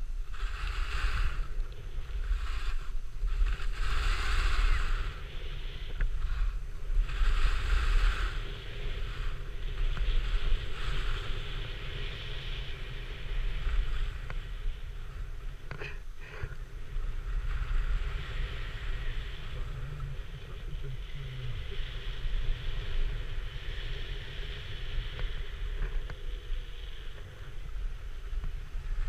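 Skis hissing over snow in a series of swishes a few seconds apart, settling into a steadier hiss, with wind rumbling on the microphone.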